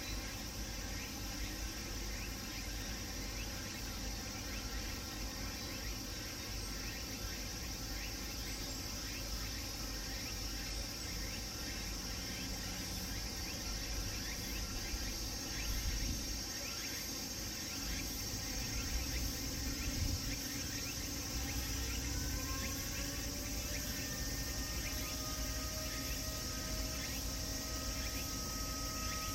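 Cicadas chirring steadily. About two thirds of the way in, the 6 p.m. public time-signal siren starts up, rising in pitch and then holding a steady wail.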